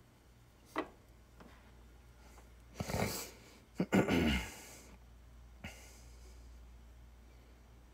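A person's breath noises: two short breathy bursts about a second apart near the middle, the second with a falling pitch, and a few faint clicks around them.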